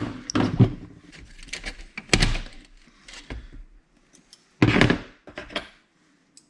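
Knocks and clatter from a receipt printer being taken apart by hand, its parts and the tools bumping and rattling. They come in several short clusters with quiet gaps between.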